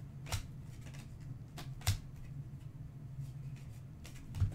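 Trading cards being flipped through by hand: a few sharp flicks and snaps as cards slide off the stack, over a steady low hum.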